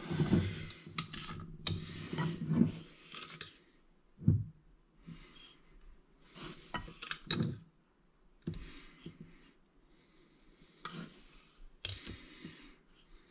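Metal spoon scooping granulated sugar out of a jar and tipping it onto a plate on a kitchen scale: clinks, scrapes and clicks of spoon and jar, in several short bursts with pauses between.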